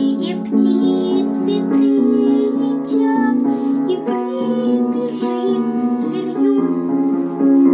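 A child singing a song in Russian with piano accompaniment.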